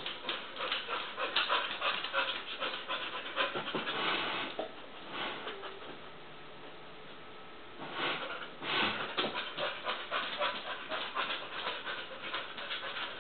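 Soft-coated wheaten terrier puppy panting in quick rhythmic breaths, with a pause of about two seconds midway before the panting resumes.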